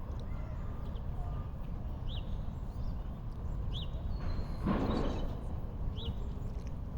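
Outdoor ambience with a steady low rumble, a bird chirping three times in short high notes, and a brief rushing noise about four and a half seconds in.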